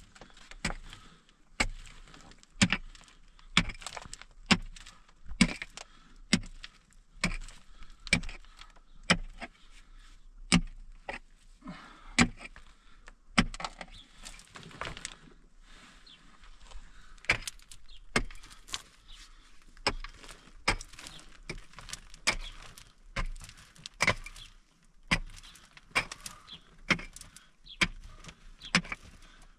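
Pickaxe striking hard earth and stones, about one blow a second, with a short pause midway.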